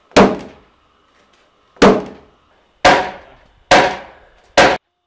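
A hatchet striking a timber-frame beam where it joins a post: five hard wooden blows, about a second apart, each with a short ring. The last one is cut off abruptly.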